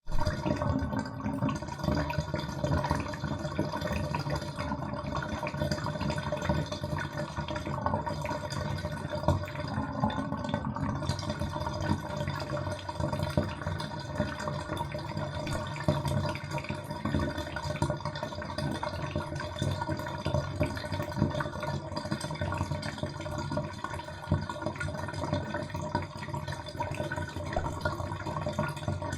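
Bathtub water draining: a steady, continuous gurgle and slosh of water running down the plughole, with rapid small bubbling flickers.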